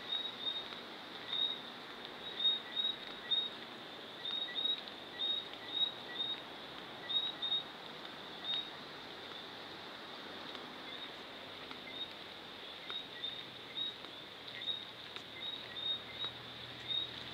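Outdoor ambience: short, high chirps from a small calling animal repeat irregularly, about one or two a second, over a faint steady hiss, pausing for a few seconds around the middle.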